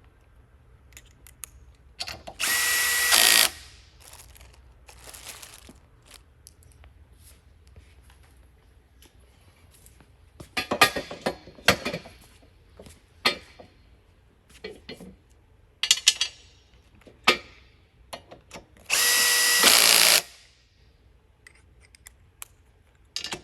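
Power drill driving screws in two steady bursts of about a second each, one near the start and one about 19 seconds in. Between them come scattered clicks and rattles of hardware being handled.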